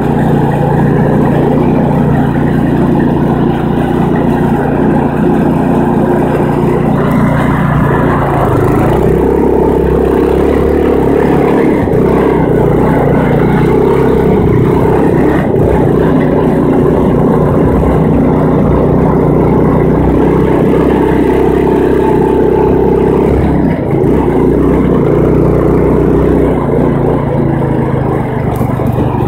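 Old lawn tractor's small engine running steadily under way, its note shifting about eight seconds in.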